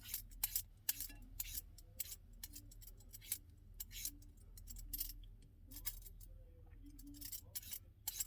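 Quick strokes of a Victorinox REX Y-peeler's blade shaving skin off a cucumber, a short sharp scrape with each pass, about one or two a second in an uneven rhythm.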